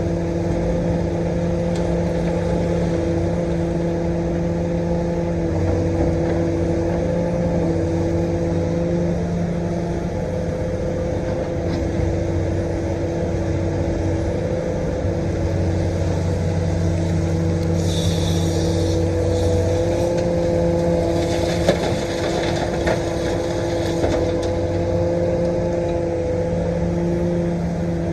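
Komatsu PC450-8 LC excavator's diesel engine running steadily at working speed, with a short burst of hiss about two-thirds of the way through.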